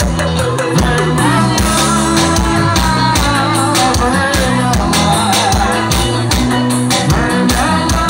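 Live band music played loud through a stage sound system, with a singer over a steady drum beat and bass.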